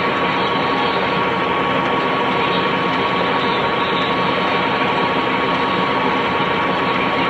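Funai VCR/DVD combo player running, a steady mechanical whir with a constant high whine.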